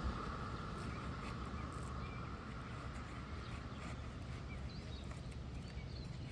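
Outdoor background: a steady low rumble of wind on the microphone, with a few faint, short bird chirps.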